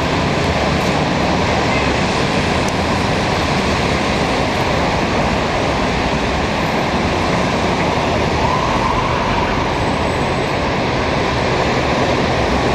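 Steady drone of dense expressway traffic: many car engines and tyres running together.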